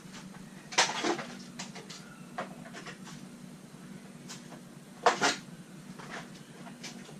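Plastic knocks and clunks of a Rainbow vacuum's motor and housing being handled and pressed into place, loudest in two clusters about a second in and about five seconds in, over a steady low hum.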